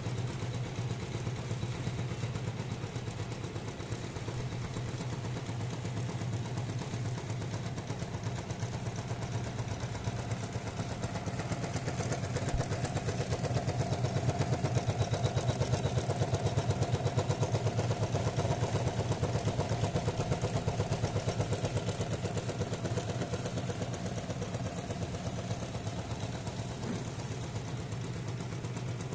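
Usha Janome 450E embroidery machine stitching a design: a steady, rapid, even chatter of the needle over the low running of its motor, louder through the middle stretch.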